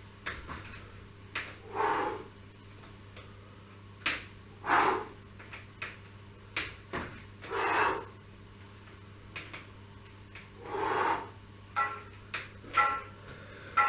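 A person breathing out hard with each pull of a bodyweight row on suspension-trainer straps, four breaths about three seconds apart. Short clicks and creaks come from the straps between them.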